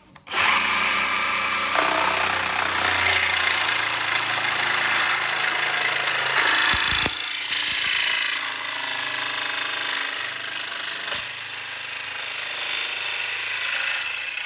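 Jigsaw with a Makita metal-cutting blade sawing through a metal cabinet-hanging rail, running steadily under load with a short break about halfway through.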